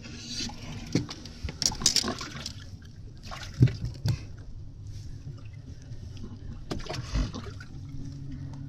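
Water sloshing and splashing, with scattered knocks and clicks, over a steady low hum.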